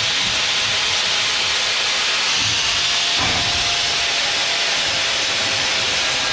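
Corded DeWalt angle grinder held against a bent steel bracket, giving a steady grinding hiss as it takes the mill scale off the steel.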